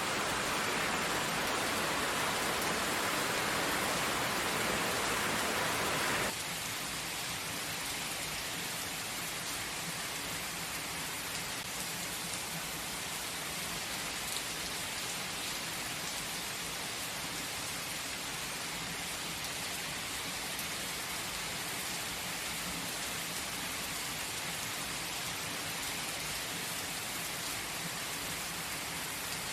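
Steady gentle rain falling, an even patter. About six seconds in, a louder rushing layer in the sound cuts off abruptly and the rain carries on a little quieter and unchanged.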